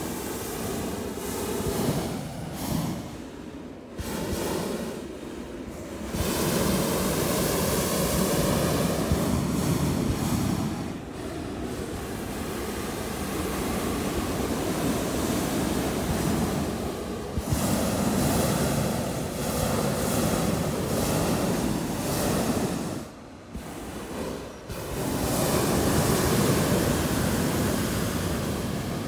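Hot air balloon propane burners firing in long blasts, a steady roar that stops and starts again several times, loudest in three stretches.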